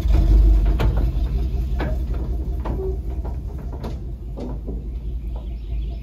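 Chevrolet pickup truck's engine running as it pulls a trailer away, the low rumble slowly fading as it moves off. The empty-sounding trailer frame clanks and rattles over the bumps, a dozen or so sharp knocks scattered through.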